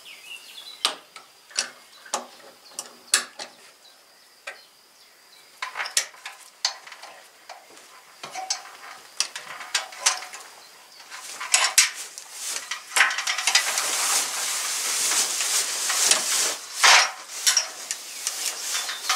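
Handling of a coiled black plastic misting hose as it is unwound and hung along wooden roof beams: scattered clicks and light knocks, busier and mixed with rustling over the last few seconds.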